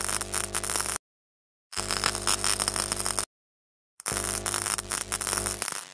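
Glitchy electronic intro sound effect, a crackling static-like noise over a low buzz, in three bursts of about a second and a half each with silence between them.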